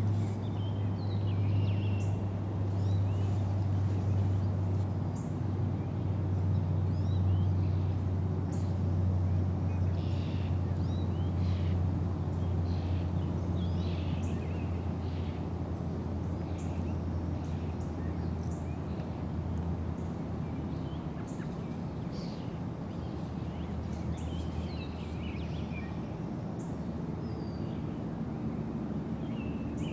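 Outdoor ambience: small birds chirping and calling over a steady low hum, which drops somewhat about two-thirds of the way through.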